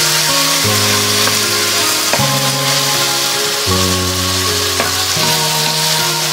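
Chicken pieces with shallots, garlic and tomato sizzling in a stainless steel pan as they are stirred with a wooden spatula, a steady hiss of frying. Background music of held chords that change about every second and a half plays over it.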